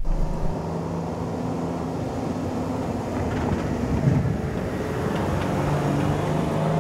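2022 Toyota Tundra TRD Pro's twin-turbo V6 hybrid powertrain running at low speed as the truck drives along a dirt trail. The engine note holds steady, with a brief thump about four seconds in, then shifts and rises slightly near the end.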